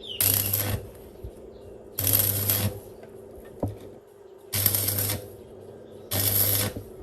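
Electric welder making four short welds, each a crackling burst of about half a second with a low hum under it.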